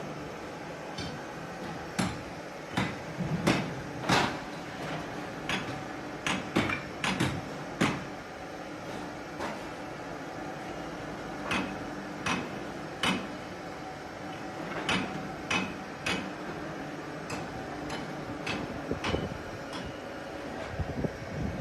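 Irregular metallic knocks and clanks, some in quick clusters, over a steady machinery hum.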